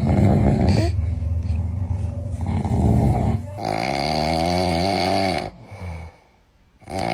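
A man snoring: a long rough snore, then a second snore with a buzzing, wavering pitch. After about a second of quiet, the next snore starts at the very end.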